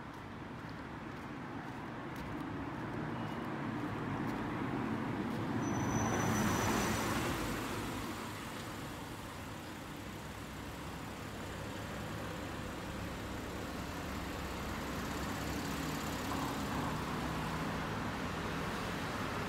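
Street traffic noise, a steady hum with one vehicle passing that swells and fades about six to seven seconds in.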